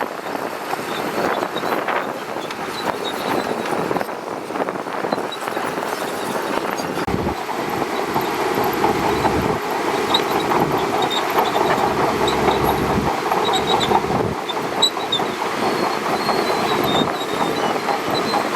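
Shantui DH17C2 crawler bulldozer working, its diesel engine running with steel tracks clanking and squealing. It grows louder about eight seconds in, with short high squeaks after that.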